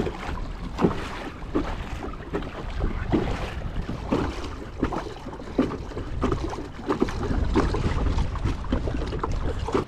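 Wind buffeting the microphone in a low rumble, with choppy waves slapping irregularly against the plastic hull of a small Pelican Bass Raider boat.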